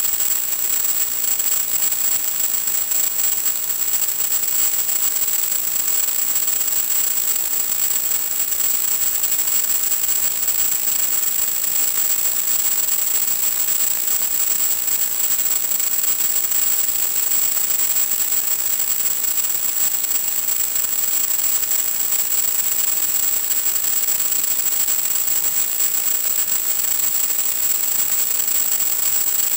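Steady static hiss with a constant high-pitched whine on top, unchanging throughout: the audio channel of an FPV video link carrying only radio noise.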